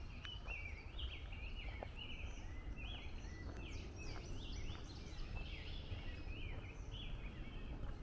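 Songbirds chirping and singing in woodland, many short rising and falling calls overlapping throughout, over a steady low rumble.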